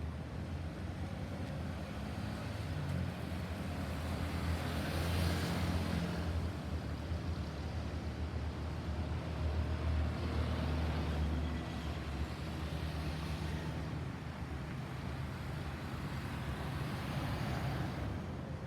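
Road traffic: engines running and tyre noise swelling and fading as several vehicles pass one after another, with no siren sounding.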